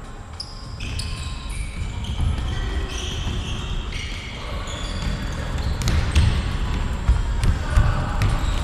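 Sounds of a football match in a sports hall: short high squeaks from shoes on the floor, thuds of the ball, and a few sharp kicks in the second half, over a low rumble.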